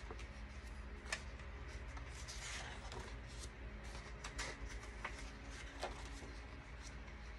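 Faint rustling, sliding and soft taps of printed cardstock sheets being leafed through by hand, with a few light paper clicks spread through.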